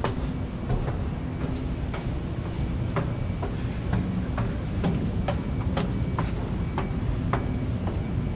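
Footsteps climbing steel stair treads, a sharp knock about every half second, over a steady low rumble.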